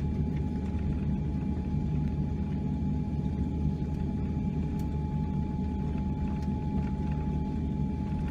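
Steady low cabin rumble of a Boeing 787-9 airliner taxiing after landing, with a thin, steady whine held through it.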